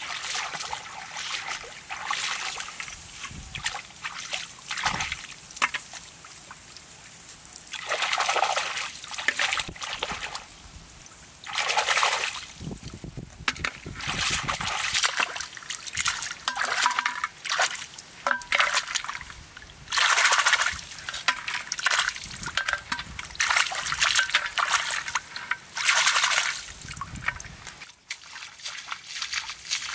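Shallow muddy floodwater splashing, sloshing and trickling in repeated bursts, with several louder splashes.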